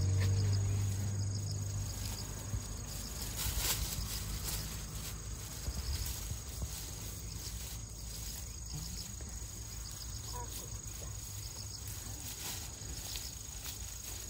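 Insects chirring steadily in the orchard grass, with scattered light clicks and rustles from chestnut tongs and a plastic bag as chestnuts are picked up. Background music fades out in the first couple of seconds.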